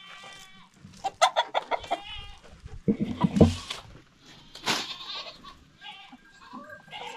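Domestic hens clucking and calling in short bursts, with a brief rustle about two-thirds of the way through as leafy sweet potato vines are tossed into their run.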